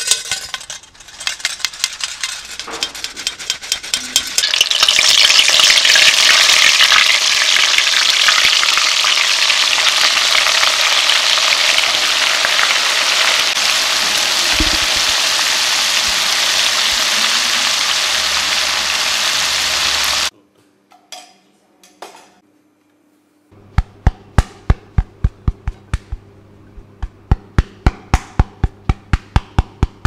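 Flour-dredged zucchini flowers deep-frying in a pot of oil: a loud, steady sizzle that cuts off suddenly. Before it, a metal flour sifter clicks and rattles over the dish. Near the end comes a fast, even run of sharp ticks over a low hum.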